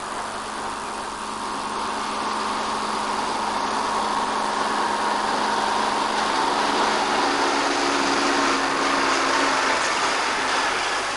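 Tank engines running steadily: a dense mechanical drone with a low hum that shifts up in pitch about halfway through.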